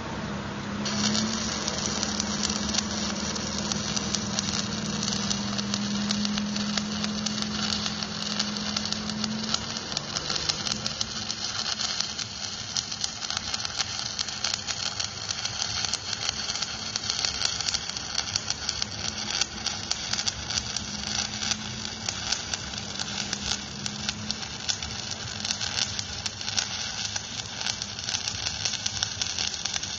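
Stick (electric arc) welding on an excavator bucket adapter: the arc's steady dense crackle and hiss begins about a second in. Under it runs a low hum that fades about ten seconds in.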